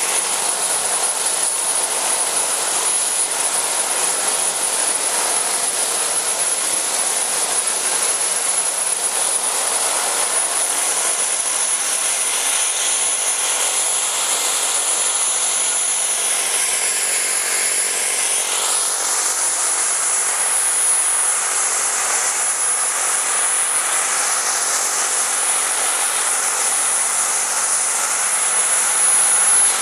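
JetCat PHT2 shaft turbine of a radio-controlled scale Alouette II helicopter running in flight: a steady jet whine with a thin high tone over a rushing noise. The pitch of the rush sweeps down and back up a little past halfway, and the sound grows slightly louder near the end.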